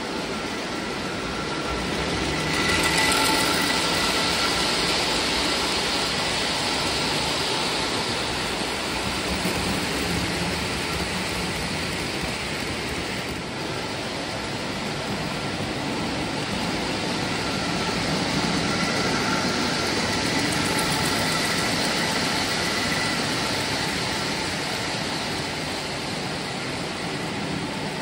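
Lionel O gauge model trains running on tubular three-rail track: a steady rumble of wheels on the rails with a faint whine of the locomotive motors, growing louder about three seconds in.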